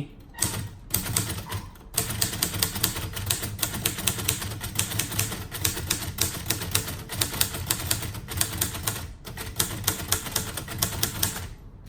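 Late-1950s Royal Quiet De Luxe portable manual typewriter being typed in a fast, steady run of key strikes, typing the capital letters. The typing breaks off briefly about two seconds in and again about nine seconds in.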